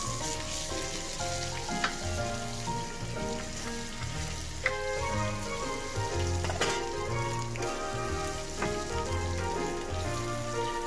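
Mung bean pancakes (bindaetteok) sizzling in shallow oil on a flat steel griddle, with a few sharp clicks of a metal spatula pressing them, over background music.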